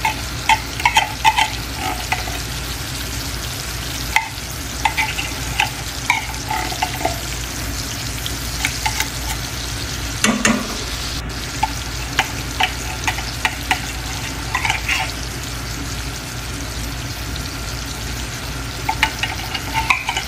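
Condensed milk sizzling steadily in hot oil in a frying pan. Over it come short bouts of a metal spoon scraping and clinking, from stirring the pan and scraping milk out of the can. There is a single thump about halfway through.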